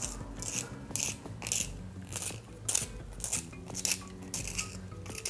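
Graphite pencil being turned in a small handheld plastic sharpener: the blade shaves the wood in short scraping strokes, about two a second. The cut is smooth and unbroken, which the artist takes as the sign of good-quality pencil wood.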